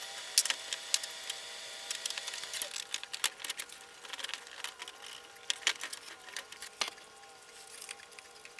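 Irregular clicks and taps of hands working the plastic parts of a 3D-printed clock movement.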